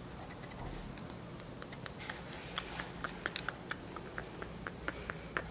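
Faint, irregular clicks and light rustling from a handheld camera being handled at close range, over a low steady room hum.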